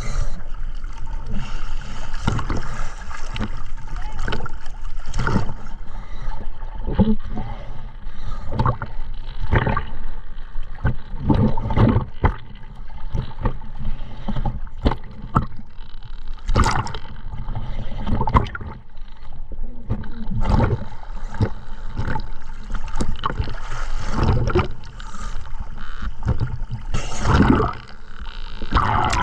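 Water gurgling and bubbling irregularly around the camera over a steady low rumble, with many short uneven splashy pulses.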